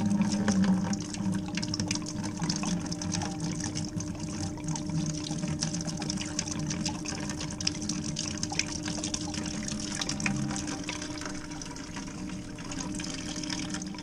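Chilled water from an isolated pipe pouring out of a drain fitting in a steady stream and splashing into a plastic bucket, slowly getting quieter as the flow eases. A steady low hum runs underneath.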